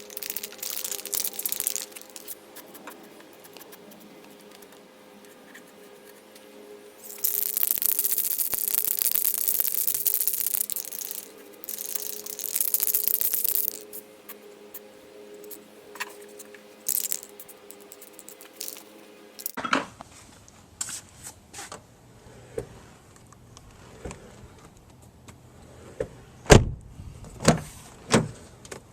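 Welding on the door check pocket's sheet metal: a steady electrical hum with two spells of loud crackling hiss, about seven and four seconds long. After a cut, a run of separate metallic knocks and clicks, the loudest near the end.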